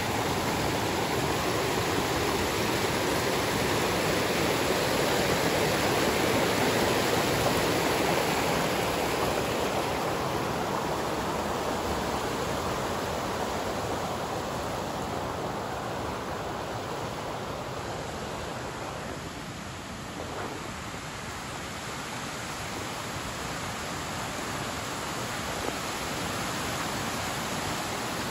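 Small creek rushing over rocks: a steady rush of water, loudest in the first several seconds, fading gradually toward the middle and swelling a little again near the end.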